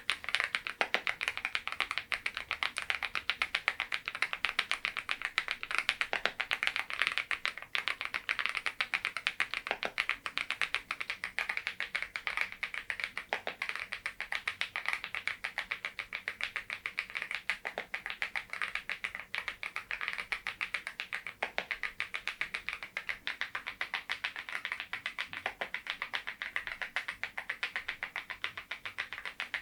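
Continuous typing on a Geekstar GKG87R tenkeyless mechanical keyboard fitted with Balhae Blue tactile switches: a steady, rapid run of key clacks, many strokes a second.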